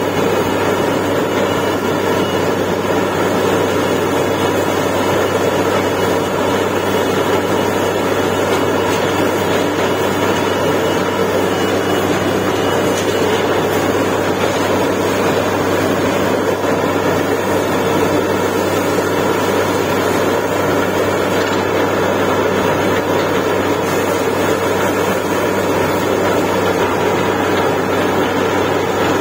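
Truck-mounted borewell drilling rig running steadily under load as it drills, its engine and air-blown drilling making a constant loud hum with no break.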